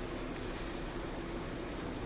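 Automatic plastic-cup sealing machine running: a steady mechanical hum over even hiss, with one faint click.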